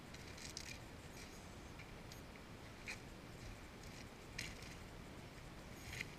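Faint footsteps in rubber boots crunching on river-bar gravel and cobbles: a handful of separate sharp crunches, a second or more apart, over a steady low hiss.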